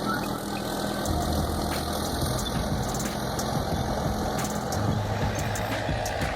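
Crawler bulldozer's diesel engine running with a steady low drone that shifts slightly in pitch a couple of times, with faint scattered clicks.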